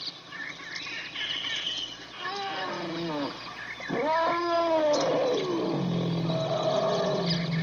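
Baby elephant calling: two pitched roaring calls, each bending up and then falling, followed by a steadier drawn-out call, with birds chirping in the background.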